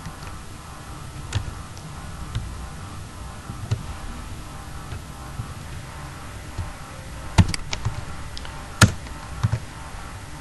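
Scattered sharp clicks of computer keys and a mouse: a few single ones, then a quick cluster of them about seven to nine seconds in. A low steady hum runs underneath.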